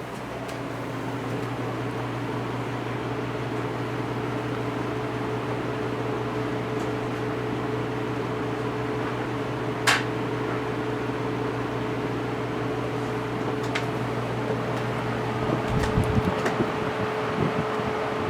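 Codep industrial ceiling fan running with a steady motor hum over the rush of air, growing a little louder in the first couple of seconds. There is one sharp click about halfway through. Near the end the low hum drops away and an uneven low rumble comes in.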